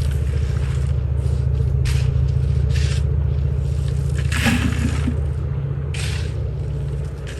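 A shovel scraping and scooping in loose ground in short strokes about once a second, with a longer, louder scrape about four and a half seconds in. A steady low drone runs under it throughout.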